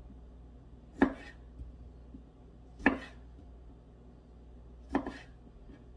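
Kitchen knife halving cherry tomatoes on a wooden cutting board: three sharp knocks of the blade on the board, about two seconds apart.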